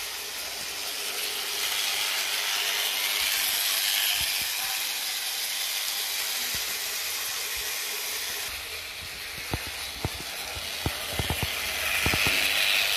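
Märklin HO-scale E 18 electric locomotive model running with its coaches over metal track: a steady whirring hiss of motor and wheels. It grows louder as the train passes close near the end, with a few sharp clicks shortly before.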